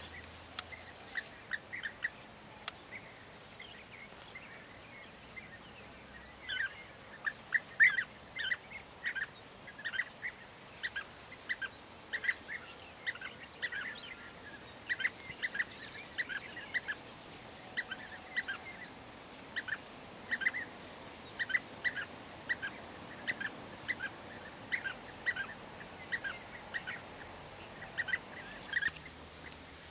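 European bee-eater calling: short, repeated calls in loose runs of about two a second, with brief pauses between runs.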